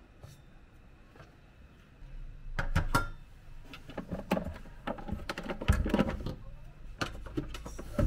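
Handling noise: rumbling and rustling as the camera is picked up and moved and a knit sweater sleeve brushes over it, with scattered clicks and knocks, starting about two seconds in.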